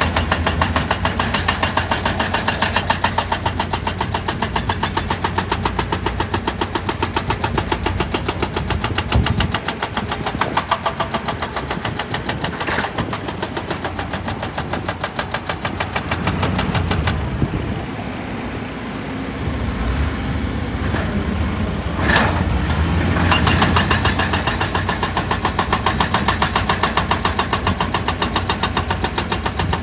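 Heavy excavator working, its engine running with a rapid, even pulsing. It eases off for a few seconds past the middle, then picks up again with a sharp knock.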